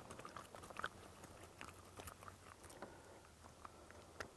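Near silence with faint, scattered small clicks and crackles from handling a freshly caught bass and the jig hook in its mouth.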